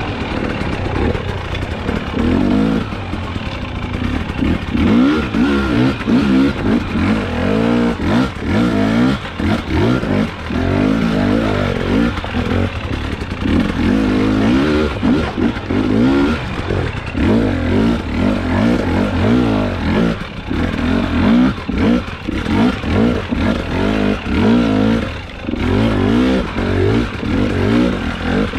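Husqvarna enduro dirt bike engine revving up and down again and again under short bursts of throttle as the bike picks its way up a rocky, rooty trail in low gear.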